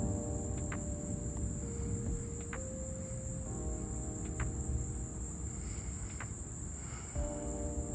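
Crickets chirping in a steady high trill over a low rumble that is loudest at the start and eases off, like the tail of distant thunder.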